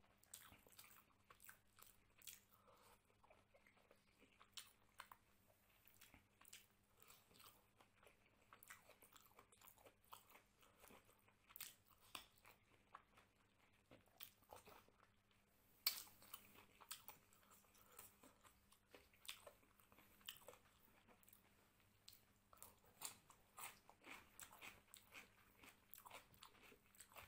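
Quiet, close-miked eating sounds of a man eating mutton curry and rice by hand: irregular wet chewing, smacking and small clicks, one louder smack about halfway through.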